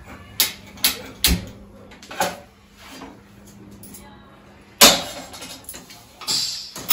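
Stainless steel pots clanking as they are handled and set down on a gas stove: a few short knocks, then one louder clank about five seconds in.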